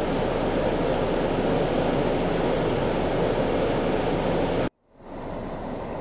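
Steady rush of a fast-flowing creek running high after heavy rain. It cuts out abruptly near the end, giving way to a quieter steady noise.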